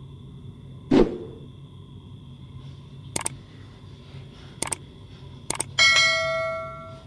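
A thump about a second in, then three quick double mouse clicks and a bright notification-bell ding that rings out and fades over about a second: the sound effects of an animated subscribe button.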